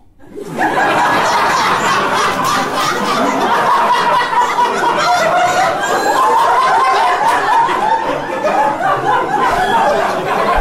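Audience laughing, breaking out suddenly about half a second in and staying loud throughout.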